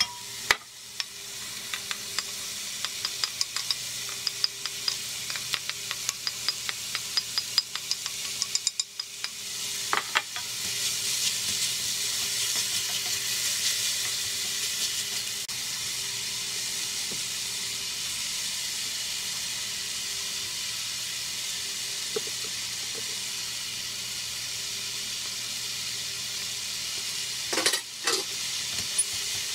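Diced onion, mushroom and zucchini sizzling as they fry in a stainless steel pot, stirred with a wooden spoon. For the first ten seconds or so the spoon clicks and scrapes against the pot. The sizzle then grows louder and holds steady, with a couple of knocks near the end.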